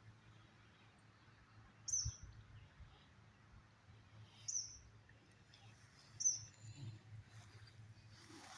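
A bird calls three times with a short, high chirp that slurs downward, spaced about two seconds apart, over faint low background noise.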